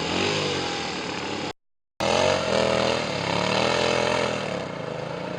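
Motorcycle engine running, its pitch rising and falling as the throttle is worked. The sound cuts out completely for about half a second about a second and a half in, then the engine returns, revving up and down.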